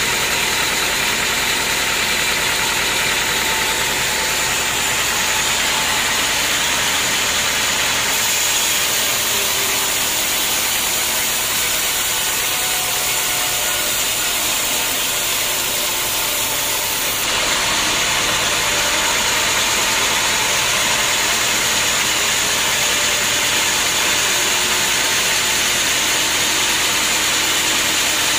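Band sawmill running: a steady, loud machine drone that shifts in tone for a stretch between about 8 and 17 seconds in.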